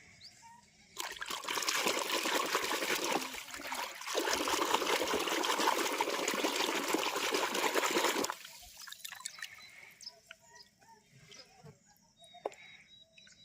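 Running water pouring and splashing over plastic toys as they are washed. It starts about a second in, dips briefly and cuts off sharply after about seven seconds, leaving a few faint clicks.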